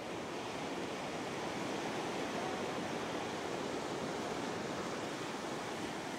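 Steady shoreline ambience of waves washing on the shore with wind, an even rush of noise without distinct breakers.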